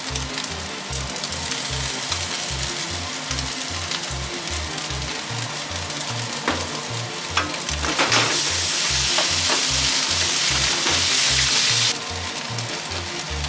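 Ketchup-coated fried rice sizzling in a hot wok as it is stirred with a wooden spatula. The sizzle gets much louder for a few seconds past the middle, with a few scrapes of the spatula against the pan. Background music with a steady beat plays underneath.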